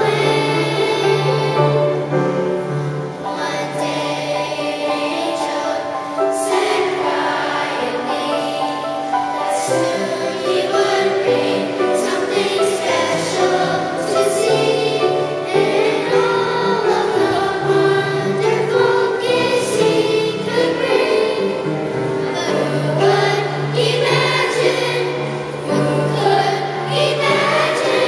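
A children's school choir singing a Christmas carol, with low sustained accompaniment notes beneath the voices.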